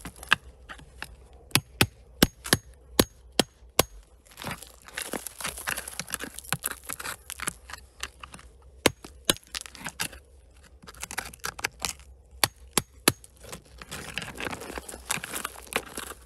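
Digging by hand in rocky ground: a run of sharp knocks on rock, about two a second, and later single knocks, between stretches of scraping and rattling of soil and loose stones.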